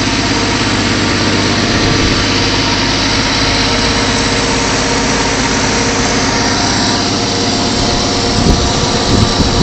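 1954 Chevy 210's engine running steadily at idle on its newly fitted, freshly tuned Holley 64-7470 carburetor, running smoothly and strong. A few low bumps sound near the end.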